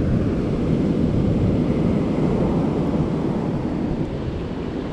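Steady rumble of wind buffeting the microphone, with ocean surf washing behind it.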